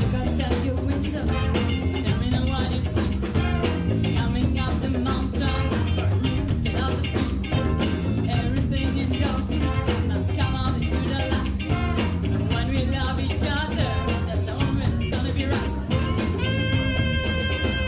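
Big band with horn section playing an upbeat number over a steady drum-kit beat. About sixteen seconds in, the horns hold a sustained chord.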